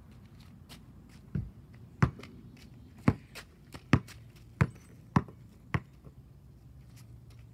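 A basketball being dribbled on an asphalt driveway: seven hard bounces, starting about a second and a half in and ending near six seconds, coming a little faster toward the end.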